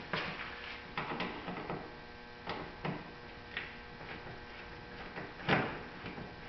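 Scattered light clicks and knocks from hand-work on a car's mud flap and wheel-well fasteners, with one louder knock about five and a half seconds in, over a steady electrical hum.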